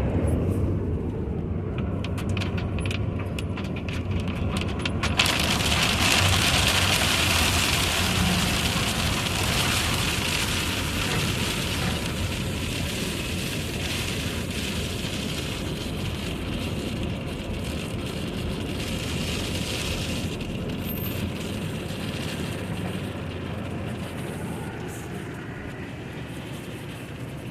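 A vehicle running: a steady rushing noise with a low hum that slowly gets quieter.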